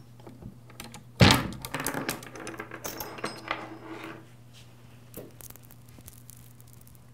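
A sharp thunk about a second in, then the steel links of an old saw chain clinking and rattling for about three seconds as it is worked off a Poulan chainsaw's guide bar and sprocket, with a few light clicks after.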